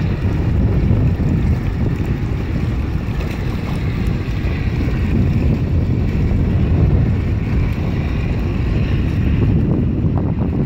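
Steady low rumble of wind buffeting the microphone, mixed with the running of the passing lake freighter CSL Laurentien and the wash of water along her hull.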